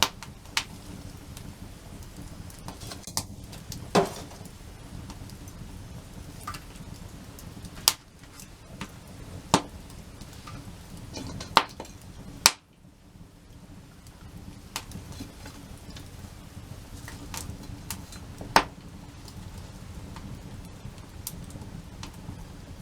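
Wood campfire burning: a steady low hiss with light crackling and several sharp, loud pops scattered through.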